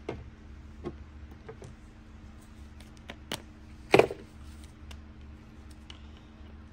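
A few light clicks of tools and parts being handled on a workbench, then one loud sharp knock about four seconds in, over a steady low hum.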